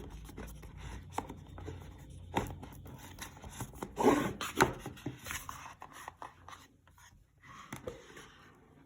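Watch box and packaging being handled: rubbing and scraping with scattered clicks and knocks, the loudest two about four seconds in.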